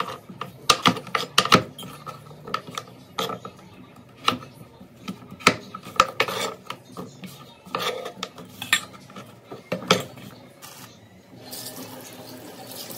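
Metal utensils clinking and knocking irregularly against a cooking pot, some strikes ringing briefly, while food is stirred and handled in the pot. A soft steady rush of noise comes in near the end.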